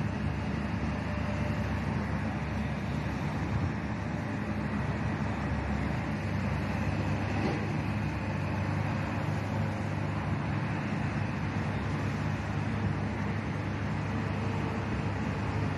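Steady, low, distant engine rumble with no sudden events.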